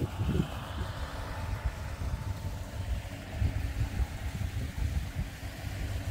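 Faint steady hum of a Kubota M4 tractor engine idling, under the rumble of wind buffeting the microphone.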